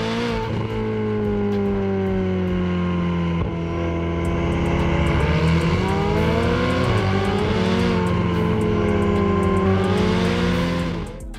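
Twin-turbo V8 supercar engines, a McLaren and a Ferrari, driving at speed. The engine note rises and falls several times with throttle and gear changes, then fades out near the end.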